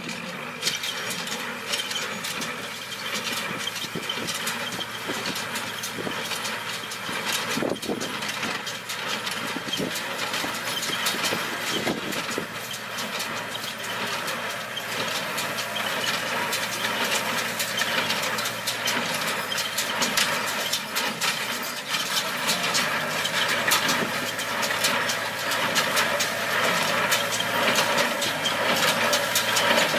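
Tractor engine running steadily under a dense mechanical clatter, growing somewhat louder toward the end.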